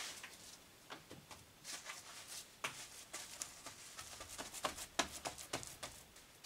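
Faint, irregular clicks and soft knocks of clay-straw mix (saman) being laid and pressed by hand onto a cordwood wall.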